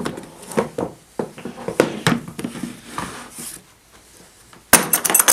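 Hard plastic tool case handled and set down on a wooden bench: scattered knocks and clatters, a short quiet spell, then a quick run of sharp clicks near the end, the loudest part.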